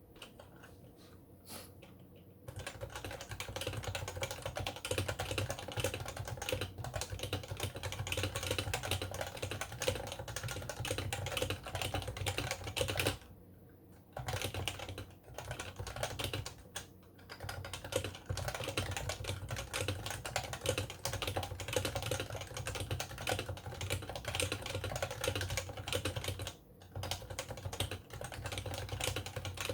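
Continuous fast typing on an HHKB Pro 2 Topre electro-capacitive keyboard, keys clacking rapidly. It starts a couple of seconds in, with brief pauses about halfway and again near the end.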